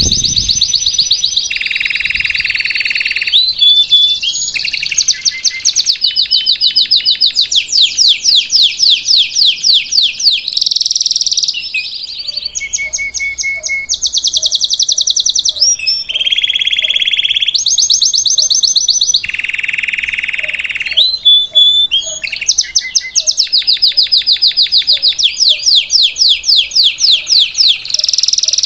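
Domestic canary singing a continuous song. Fast trills of rapidly repeated high notes alternate every second or two with lower, buzzier held rolls.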